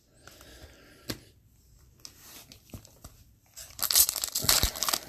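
Hockey card pack wrapper torn open and crinkled, loud crackling that starts about two-thirds of the way in, after a quiet stretch with a single faint click.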